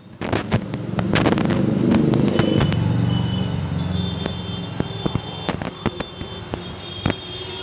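Firecrackers going off: a rapid scatter of sharp cracks and pops, over a low rumble that swells about a second in and slowly fades.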